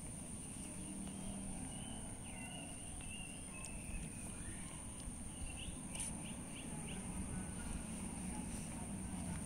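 Quiet background with a few bird chirps: a short run of chirps about two seconds in and four quick chirps about six seconds in, over a steady high-pitched tone and a low background rumble.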